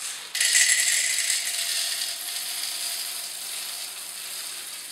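Whole roasted coffee beans pouring from a plastic canister into the hopper of an electric coffee grinder, a dense continuous rattle of beans that starts a moment in and slowly thins out.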